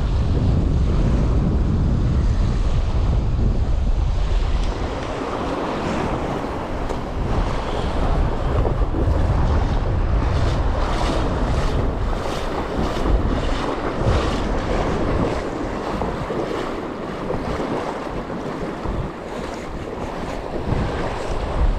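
Strong gusting wind buffeting the microphone with a heavy low rumble, over the wash of wind-driven waves on the lake shore. The rumble eases after about five seconds, and the splashing of the waves comes through more clearly.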